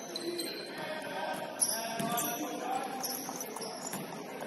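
Indoor basketball game in play: sneakers squeaking in short high chirps on the court over a murmur of players' voices, with a sharp knock about a second and a half in and another half a second later.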